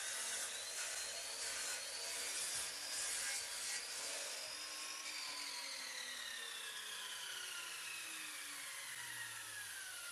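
Bosch sliding mitre saw cutting through a hardwood end-grain cutting board. Then, from about halfway through, its blade coasts down with a falling whine.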